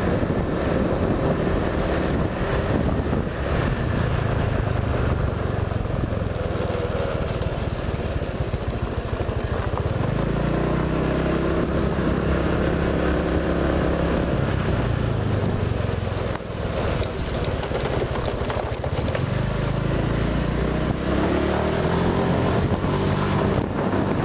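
Honda Vario 125 PGM-FI scooter's single-cylinder engine running on a ride, its note changing with speed about ten seconds in and again around sixteen seconds. It has a new ignition coil and spark plug, and the owner hears no more of the "snore" sound that most users complain of.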